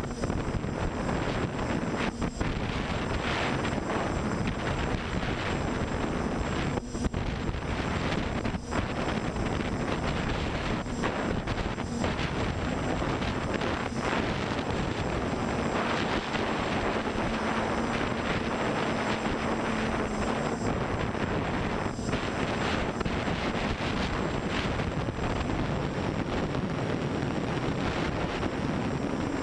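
Multirotor drone in flight: brushless motors (Tiger MN2216) spinning Graupner 10x5 propellers in a steady drone that shifts slightly in pitch with throttle, buried in heavy wind rush on the onboard camera's microphone.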